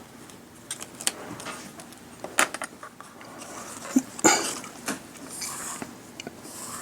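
Craft materials handled on a work table: a scattering of small clicks and taps, the strongest about four seconds in, with brief rustling near the end.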